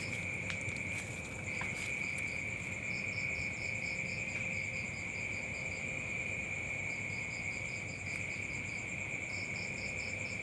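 Insects calling: a steady, unbroken high trill, with runs of rapid higher chirps starting and stopping over it every second or two.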